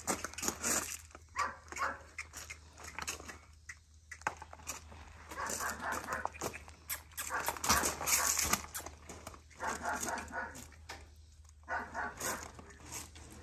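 A dog barking and yipping in several runs, off and on throughout.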